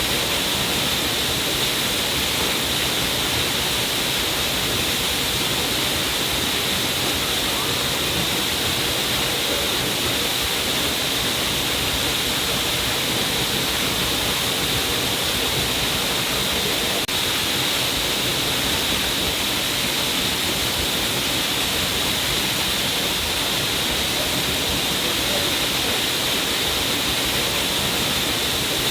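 A stream of water falling down a cliff face, a steady, unbroken rushing and splashing.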